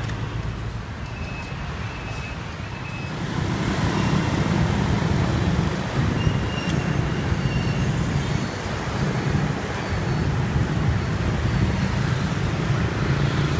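City street traffic, mostly motor scooters with a few cars passing: a steady engine hum that grows louder about three and a half seconds in.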